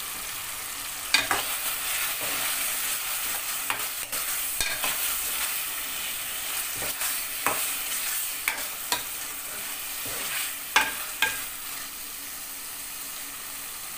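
Boneless chicken in a tomato, cream and milk masala sizzling steadily in a metal pot as it is fried down, while a slotted metal spoon stirs it, scraping and clicking against the pot at irregular moments.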